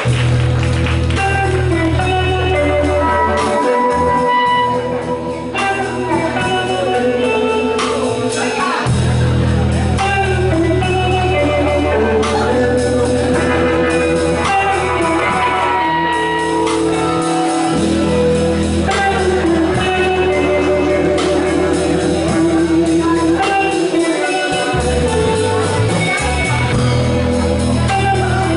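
A live rock band playing: electric guitar, electric bass and drums, with a voice singing over them.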